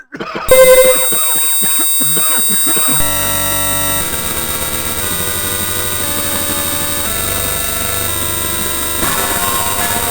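Loud, harsh electronic cacophony: a dense noisy wall of many steady held tones, loudest just after it begins and shifting to new held chords about three, four, seven and nine seconds in.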